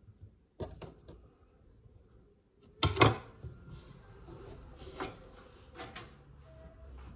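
Kitchen handling knocks on a countertop as cucumber slices are set on a wooden plate and the cutting board is lifted away: a few light taps, then one loud sharp knock about three seconds in, then scattered lighter knocks.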